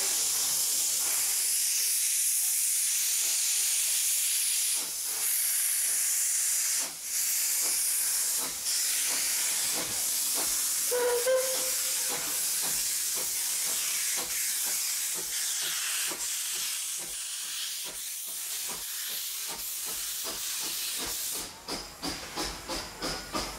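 Steady hiss of steam venting from narrow-gauge steam locomotives standing together. Near the end a quick, regular beat sets in as the train of carriages moves off.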